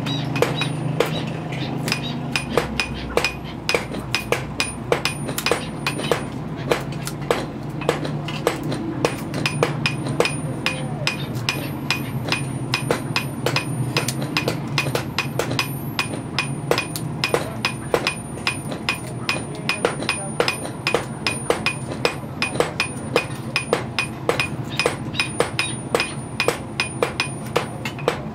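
Hammer striking metal in a steady rhythm, about three blows a second, each blow ringing with a metallic tone.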